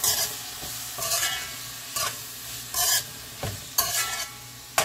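Metal spoon stirring and scraping sliced peppers, onion and tomato sautéing in a metal pot, with a stroke about once a second over a steady sizzle.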